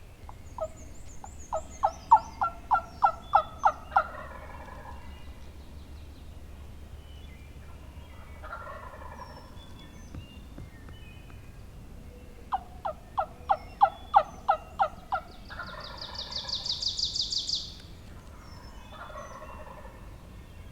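Wild turkey gobbler gobbling in answer to turkey yelps. A run of about ten evenly spaced yelps is cut off at once by a gobble, and this happens twice. Two more gobbles come between and after. A small bird's fast high trill sounds briefly about two-thirds of the way through.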